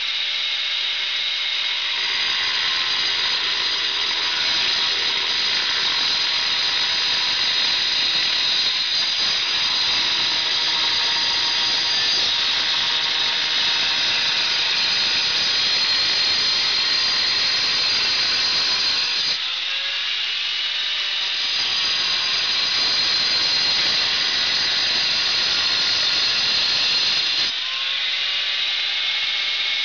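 Handheld angle grinder cutting through a tile, a steady high-pitched whine over grinding noise. About two-thirds of the way through and again near the end the cut eases and the motor's pitch rises.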